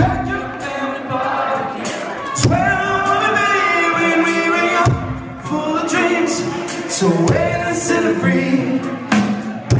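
Live band playing a song, with a man singing lead into a microphone and other voices joining in on long held notes, over drums, acoustic guitar and fiddle.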